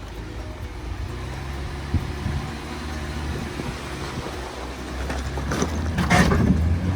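Off-road vehicle engine running steadily at low speed while crawling a rocky trail, with a sharp knock about two seconds in. A louder burst of scraping noise comes near the end.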